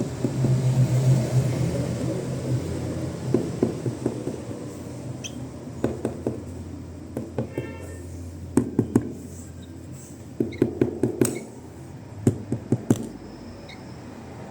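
Small bird pecking at pieces of fruit: a series of short sharp taps and clicks, often in quick clusters of two to four, over a low steady hum.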